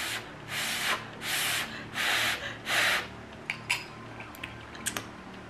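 A person slurping spicy noodles from chopsticks: about five hissing slurps in quick succession, then a few small faint clicks.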